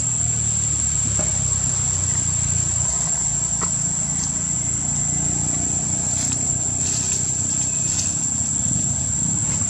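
A steady low rumble with a continuous high-pitched whine over it, and a few faint rustles or clicks near the end.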